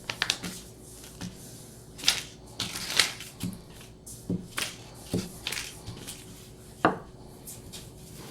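Paper being handled for a craft: irregular rustles and light taps as cut-out paper pieces are picked up and pressed onto construction paper.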